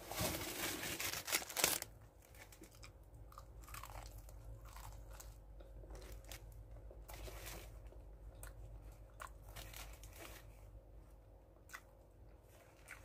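Crispy KFC fried chicken crunching softly as it is bitten and chewed: a string of small, uneven crunches, a little busier in the first two seconds.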